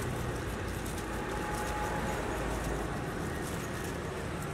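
Steady outdoor street background noise with a low rumble of traffic, heavier in the first half.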